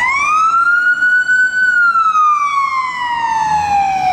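Ambulance siren on a wail. Its pitch rises over about a second and a half, then falls slowly for about two and a half seconds, and begins to climb again at the very end.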